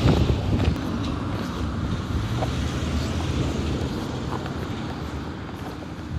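Wind buffeting a handheld microphone with a choppy low rumble, strongest in a gust at the start and then steady.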